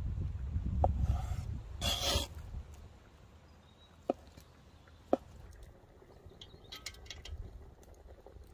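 A large knife slicing through balls of soft white cheese on a wooden cutting board, the blade knocking sharply on the board three times, about a second, four seconds and five seconds in. A low rumble and a brief rustle fill the first two seconds.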